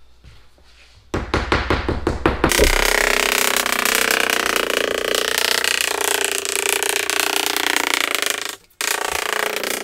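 Rubber mallet tapping down the edges of a freshly glued Formica laminate countertop, setting the contact cement along the overhang. A quick run of taps, about eight a second, starts about a second in and runs together into a dense continuous rattle. It drops out briefly near the end, then starts again.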